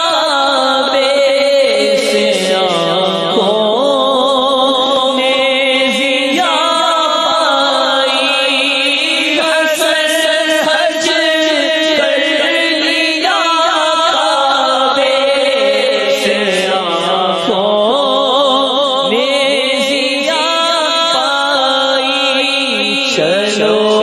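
A voice chanting a devotional verse in a slow, drawn-out melody, with long wavering held notes and runs that rise and fall; phrases break off and start again every few seconds.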